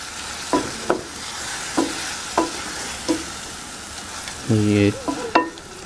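Chopped tomatoes and masala frying in oil, sizzling steadily as a wooden spoon stirs them through a metal pan, with several quick scrapes and taps of the spoon against the pan.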